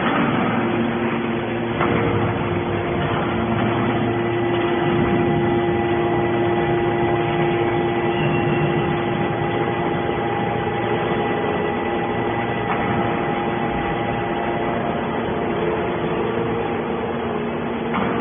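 Hydraulic scrap metal baler running: a steady machine hum with several held tones, broken by a few short knocks, one about two seconds in and another near the end.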